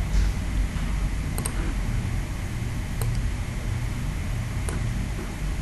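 A few sharp computer mouse clicks, a quick pair about a second and a half in and single clicks about 3 and 4.7 seconds in, over a steady low hum.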